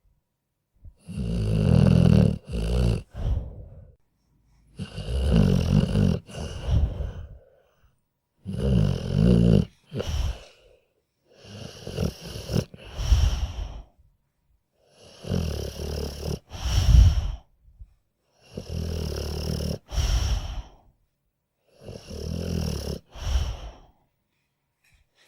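A sleeping dog snoring steadily: seven snores, one about every three and a half seconds. Each is a low, fluttering breath about two seconds long, with silence between.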